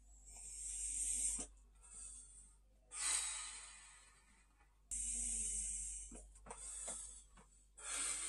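A man breathing hard through his mouth: about five hissing breaths in and out, each about a second long, one of them blowing out a long plume of vapour about three seconds in.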